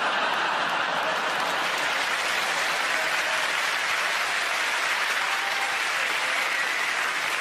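Large theatre audience applauding, a dense, steady wash of clapping.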